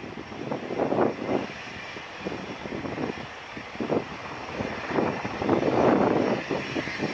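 JF-17 Thunder's Klimov RD-93 turbofan running at idle during its landing rollout, drag chute out. The noise swells and dips unevenly, with wind gusts on the microphone.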